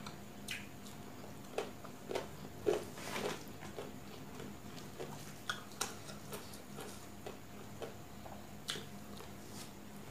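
Close-up eating sounds: chewing and fingers mixing rice and curry on a steel plate, a scatter of soft wet squishes and small clicks, busiest a second or two in.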